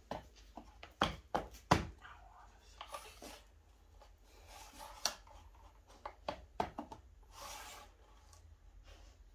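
Scattered light taps, clicks and soft rubbing from hands and a measuring rule handled on a pine board, with a few sharper knocks about a second in.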